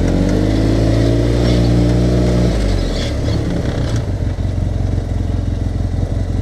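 2014 Arctic Cat side-by-side's engine running above idle while parked, then its revs falling about two and a half seconds in and running rougher at a low idle. The engine sound drops away right at the end as it is switched off.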